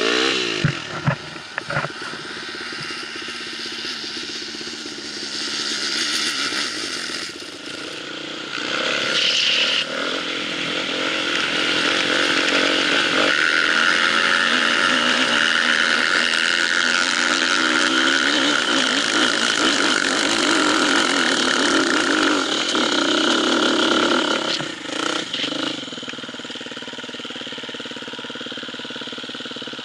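Enduro motorcycle engine running, revving up and down at first, then a long louder steady run before settling to a quieter steady note near the end.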